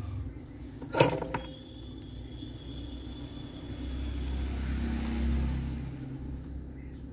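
A steady low rumble that swells from about four to six seconds in, with one sharp click about a second in, followed briefly by a faint high tone.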